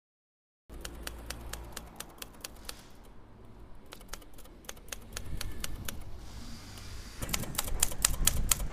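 Manual typewriter keys striking after a moment of silence: scattered single strikes at first, then a quicker, louder run of strikes near the end, over a low steady rumble.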